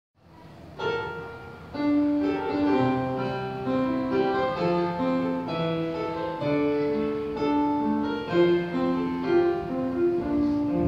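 Instrumental music: a keyboard-like instrument playing a slow melody in held notes over sustained chords, starting about a second in.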